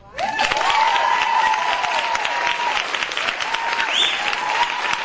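Audience applauding, breaking out suddenly right after the music, with a few high gliding calls over the clapping.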